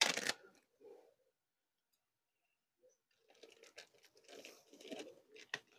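A plastic bag of shelled nuts (pecans and walnuts) crinkling and rustling as nuts are measured out. There is a sharp crunch at the start, then a quiet gap, then a longer stretch of crinkling from about three seconds in that ends in a sharp click.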